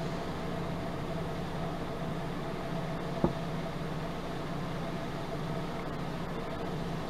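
Steady mechanical room hum, a low drone with a fainter higher tone over a noise floor, with one short click about three seconds in.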